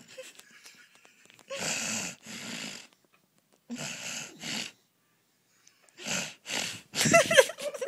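Snoring: rough, hissy breaths in pairs, each pair an in-and-out breath, coming about every two seconds, the last one near the end louder.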